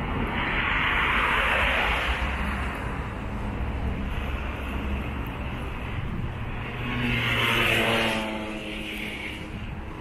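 Outdoor traffic rumble with two louder vehicle passes, one swelling about a second in and another around the seven- to eight-second mark.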